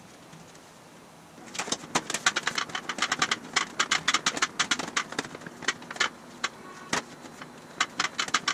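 Thin aluminum sheet panel clicking and tapping in quick, irregular succession as it is pressed and flexed by hand against a steel frame, starting about a second and a half in.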